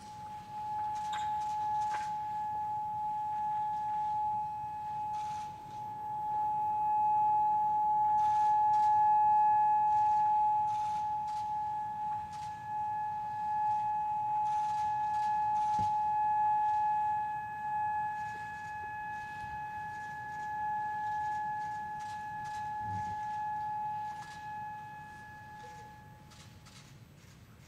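Memorial siren sounding one steady, unchanging pitch with a fainter higher overtone, swelling and easing in level and stopping shortly before the end; it marks the minute of silent prayer for the earthquake's victims. A few faint clicks over it.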